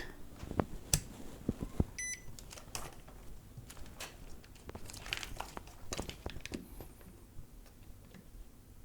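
Scattered small clicks and taps of handling, with one short electronic beep about two seconds in, as a multimeter is readied and its probes are put to a coin cell.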